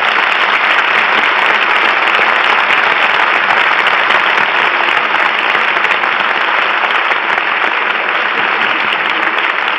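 Studio audience applauding steadily, a dense even clatter of many hands, on an old radio broadcast recording with a dull top end.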